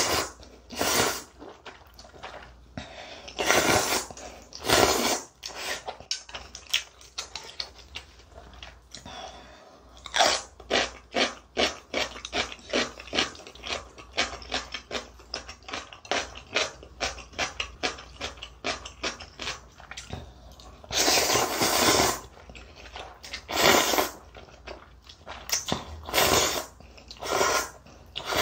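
A person slurping spicy instant ramen noodles and chewing them. There are loud slurps in the first few seconds, a long run of quick chewing from about ten to twenty seconds in, and more long slurps near the end.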